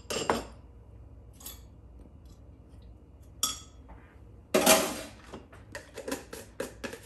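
Kitchen handling noises around a clay mortar: a knock, then a metal spoon clinking against the rim about three seconds in. A loud scraping rustle follows, then a run of small clicks and taps as a small cardboard box is handled and opened.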